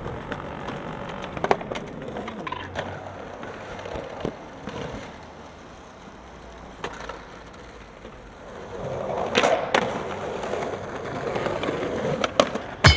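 Skateboard wheels rolling on stone paving, broken by sharp wooden clacks of the board popping and landing. The loudest two come about half a second apart, about two thirds of the way in.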